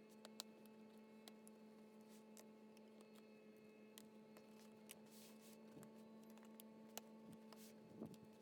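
Near silence: a steady electrical hum, with a few faint ticks and a brief soft scrape about five seconds in.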